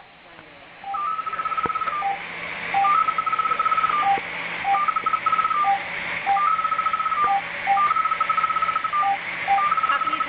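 Electronic beeping: repeated runs of rapid high-pitched beeps, each run about a second long, with single lower beeps between them, over a steady low hum and hiss.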